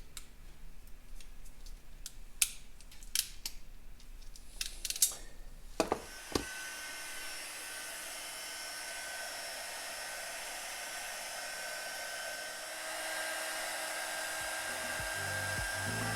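Several sharp clicks and knocks of handling small parts, then about six seconds in an electric heat gun switches on and runs with a steady blowing hiss and a faint steady whine, getting a little louder about two-thirds of the way through.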